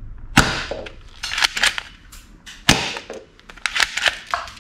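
Silver toy pistol being worked by hand: a string of sharp plastic-and-metal snaps and clicks as its slide is racked and its mechanism cycles. The loudest snaps come about half a second in and near the middle, with a quick cluster of clicks toward the end.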